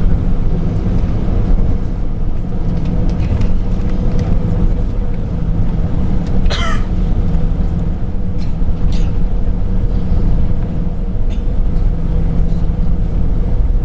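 Steady cabin noise of an Airbus A340-300 taxiing: a low rumble with a constant engine hum from its four CFM56 turbofans at taxi power. A brief sharper sound comes about six and a half seconds in.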